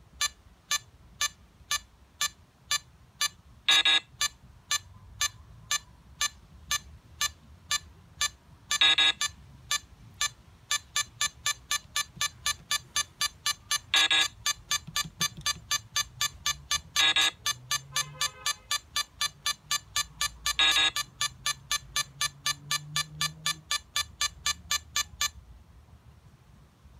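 Phone time-bomb app beeping out its countdown, about once a second and then quickening to about two a second about ten seconds in. Every few seconds a longer, louder tone sounds as codes are tapped on its on-screen keypad. The beeping cuts off near the end as the countdown is stopped.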